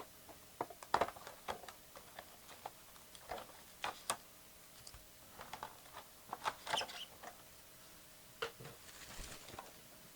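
Scattered light clicks and taps from small objects being handled at a table, irregular and uneven in strength, with a short soft rustle near the end.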